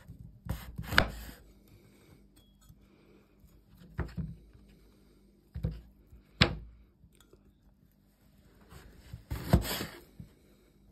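Large kitchen knife slicing through cured meat and knocking on a wooden cutting board: five separate cuts at irregular intervals, each a short scrape ending in a sharp knock.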